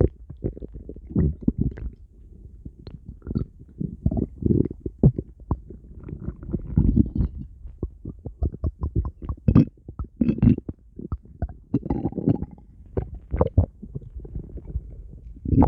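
A person's stomach growling: irregular gurgles and low rumbles that swell in short surges every couple of seconds, with a quick run of little pops and clicks around the middle.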